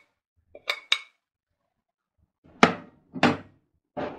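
Spoon clinking and knocking against an aluminium pressure cooker pot as spices are stirred into raw chicken pieces: two light ringing clinks about a second in, then three heavier knocks.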